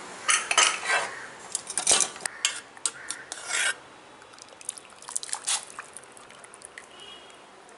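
Metal utensil scraping and clinking against an aluminium pressure cooker pot, a quick run of strokes in the first half, then fainter scattered clicks.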